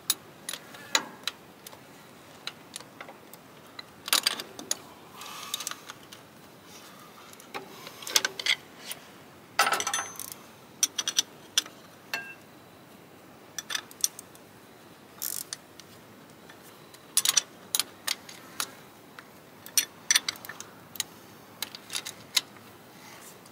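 Ratchet spanner clicking and metal tools clinking while the fuel pump's mounting bolts are tightened, one small turn at a time. The clicks come irregularly, in short clusters with quiet gaps between.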